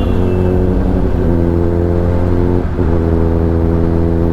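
Kawasaki Ninja ZX-10R's inline-four engine heard onboard, running at steady low revs while the bike rolls along. The engine note dips briefly twice, right at the start and again about two-thirds through, before it settles back to the same steady pitch.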